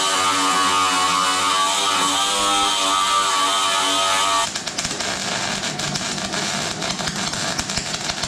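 Angle grinder running against rusty sheet-steel mudguard, its whine wavering slightly with the load. About four and a half seconds in it gives way abruptly to the irregular crackling of a Sealey Mighty Mig 210 MIG welder laying a bead on the thin steel.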